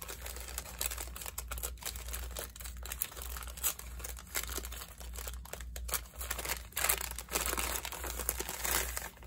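Irregular crinkling and rustling of wrapping being torn and pulled open by hand as a yarn advent-calendar package is unwrapped.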